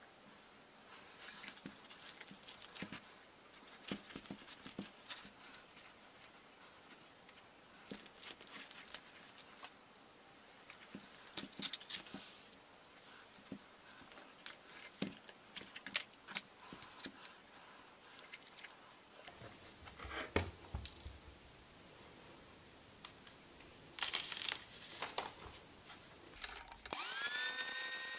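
Hands scraping and crumbling casting sand and knocking against a freshly cast aluminium piece as it is dug out of the moulding box: scattered small scrapes, rustles and clicks. Near the end a cutting disc spins up with a rising whine that levels off.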